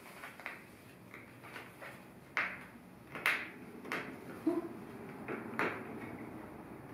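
Cheap dollar-store scissors snipping repeatedly at the thick, wire-cored stem of an artificial lamb's ear spray, with several sharp snips about a second apart. The blades are too dull to cut through in one go, so it takes repeated bites around the stem.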